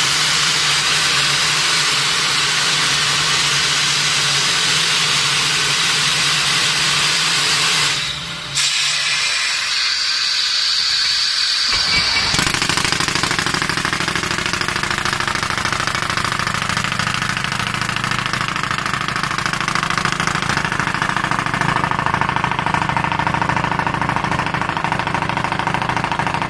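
Air-powered concrete pipe drilling machine: a loud rush of compressed air for about eight seconds that dies away, then about twelve seconds in the machine starts up and runs steadily with a low mechanical drone and rattle.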